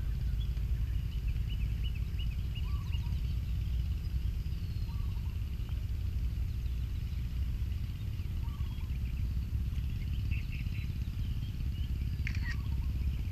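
Steady low outdoor rumble with faint, scattered bird chirps.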